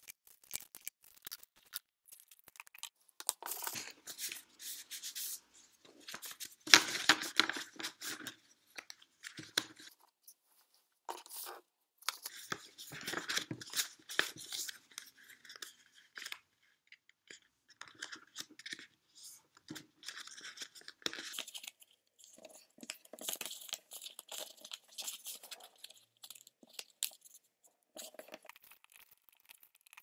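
Sheets of white paper being folded and creased by hand into origami birds: irregular bursts of rustling and crackling, with a few short pauses.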